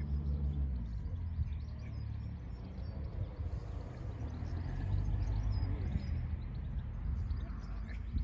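Low engine drone, most likely a boat's motor on the river: a steady pitched hum for the first half second, then a low rumble that swells again a few seconds in. Small birds chirp over it.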